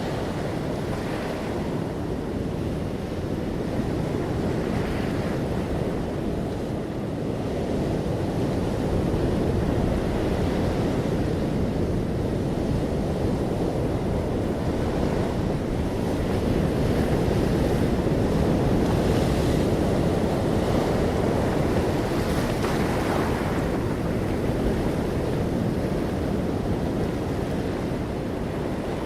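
Ocean waves breaking gently on a shore, a continuous low surf wash that swells and eases slowly, with brief hissing lifts as waves break.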